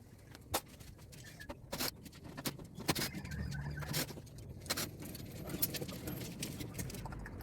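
Irregular metallic clinks and knocks from hand tools and metal parts while an air-conditioner condenser is being dismantled, about one sharp tap a second over a faint low rumble.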